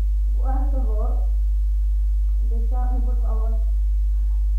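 A loud, steady low hum, with a wordless voice crying out twice over it: once about half a second in, and again in a few broken sounds from about two and a half seconds.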